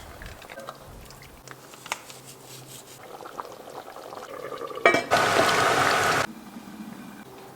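Liquid sounds from the curry pot: a quiet stretch with faint ticks, then a sharp click about five seconds in and a loud rush of liquid for just over a second that cuts off suddenly, like liquid being poured into the pot.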